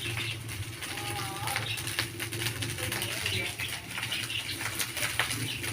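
Fried rice sizzling in a frying pan, with a spatula clicking and scraping against the pan as it is stirred.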